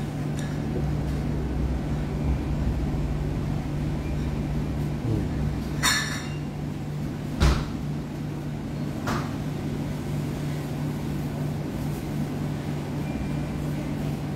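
Steady low hum of room background with a few short knocks and clicks, the loudest a sharp knock about halfway through.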